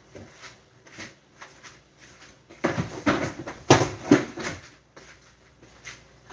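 Off-camera kitchen handling noises: scattered light clicks and knocks, then a louder stretch of rustling and clatter about three to five seconds in, with one sharp knock in the middle of it.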